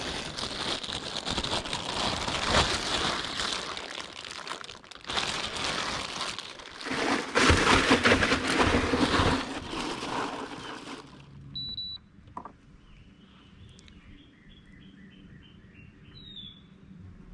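A loud, rough rustling noise with scattered knocks for about eleven seconds, then it drops away and a bird gives a few chirps and a short run of falling notes.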